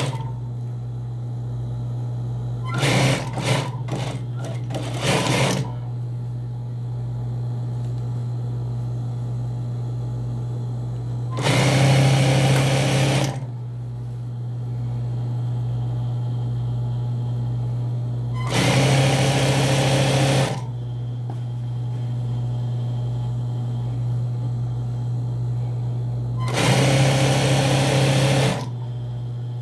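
Industrial sewing machine stitching trouser fabric. Its motor hums steadily throughout; the needle runs in a few short spurts about three seconds in, then in three runs of about two seconds each, separated by pauses.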